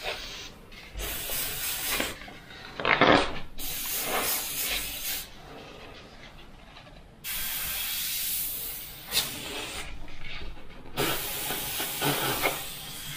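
Mr. Hobby airbrush spraying paint in bursts of hiss as the trigger is pressed and released, with short quieter pauses between passes; the loudest burst is about three seconds in.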